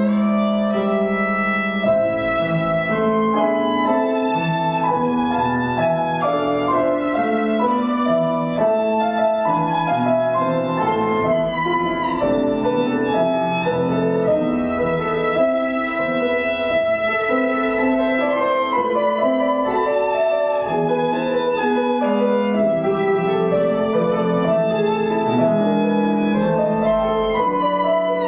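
Violin playing a slow melody in long held notes, with piano accompaniment.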